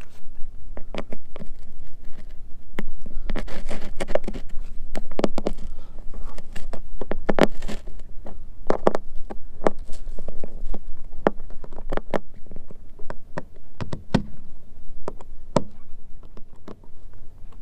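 Hand-tool work on a fiberglass boat deck: irregular sharp clicks and short scrapes as deck fairlead hardware is handled and screwed down with a screwdriver, over a low steady rumble.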